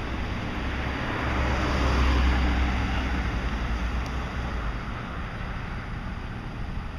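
A car driving past close by, its engine and tyre noise swelling with a low rumble about a second in and fading out by about five seconds, over steady street noise.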